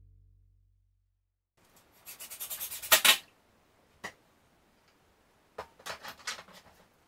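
A wooden drawer sliding in its opening: wood rubbing on wood in quick scraping strokes that end in a sharp knock about three seconds in. A single click follows, then another short run of scraping strokes near the end.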